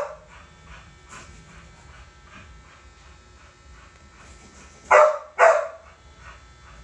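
Dog barking: the end of one bark right at the start, then two barks about half a second apart some five seconds in.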